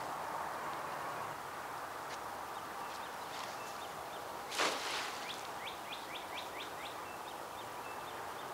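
Birds chirping over a steady outdoor hiss, with a quick run of about six falling chirps a little past halfway. Just before that run comes a short, sudden rushing noise, the loudest sound here.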